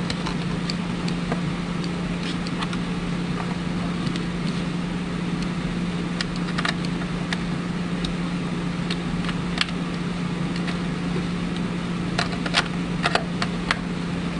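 A steady room hum, one constant low tone over a noise haze. Scattered light clicks of small parts and tools being handled come through it, a few around the middle and a cluster near the end.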